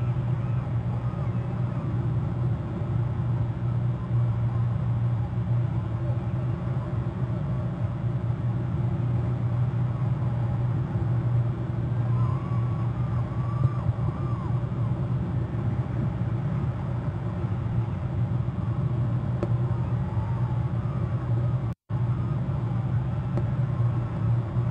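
Steady low rumble, with a few faint wavering higher notes around the middle; the sound cuts out completely for a split second near the end.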